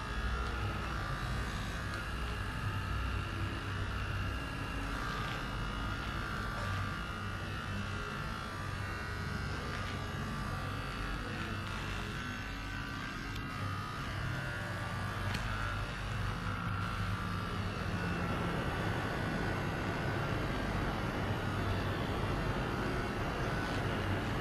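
Electric microneedling pen (Dermaqual Forza MMS 007) buzzing steadily as it is worked across the skin of the face.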